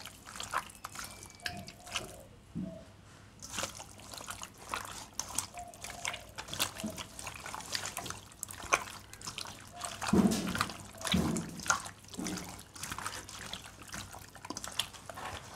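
Hands squelching through raw chicken wings coated in sauce while mixing them in a stainless steel bowl: a steady run of irregular wet squishes and clicks, a little louder about two-thirds of the way through.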